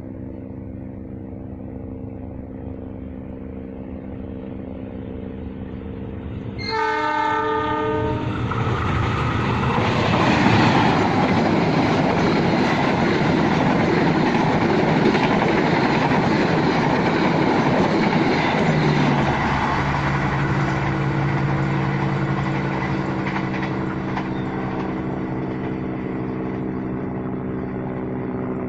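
Passenger train with a diesel locomotive: a steady engine drone as it approaches, then the horn blows once for about a second, roughly seven seconds in. The train then passes with a loud rush of wheel and rail noise that eases off after about twenty seconds, leaving a steady hum.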